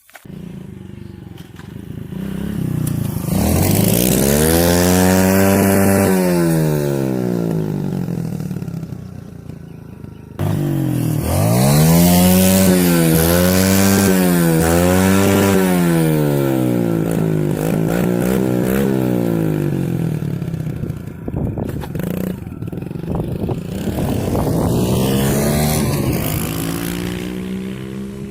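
Kawasaki KLX110 dirt bike's small air-cooled single-cylinder four-stroke engine revving up and down. It makes one long rise and fall, then after a sudden break about ten seconds in, three quick blips in a row, a lower steady stretch, and another rise near the end.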